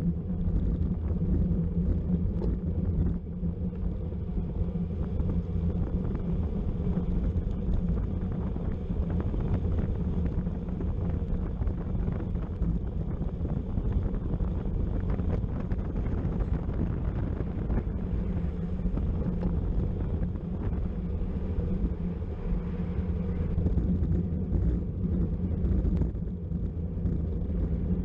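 Steady wind rumble on the microphone of a camera carried on a bicycle at racing speed, low and unbroken.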